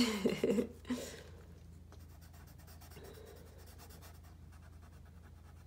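Colored pencil scratching on paper in quick, repeated shading strokes, faint and steady.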